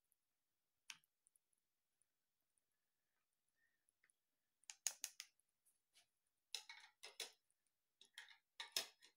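Quiet clicks and scrapes of a plastic debubbling tool knocking against the inside of glass canning jars packed with jalapeños. They come in three short clusters in the second half, as trapped air is worked out of the jars before the lids go on.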